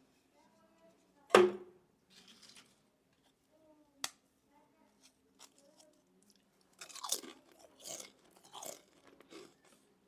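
Mister Potato chips crunching as they are crushed in a meat grinder. A loud sharp crack comes about a second in and a short click a few seconds later, then a run of crackling crunches near the end.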